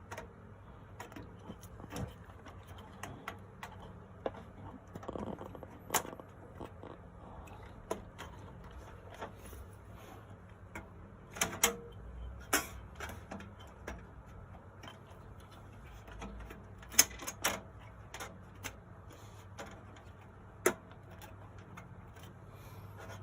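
Scattered small clicks, taps and knocks of computer parts being handled and fitted into a PC case, with a few sharper knocks about halfway through and near the end, over a faint steady low hum.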